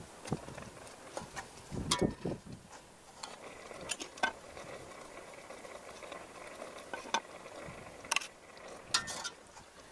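Metal ladle stirring fish soup in an aluminium pot, clinking sharply against the pot several times at irregular intervals, with a sloshing stir about two seconds in, over a steady low hiss.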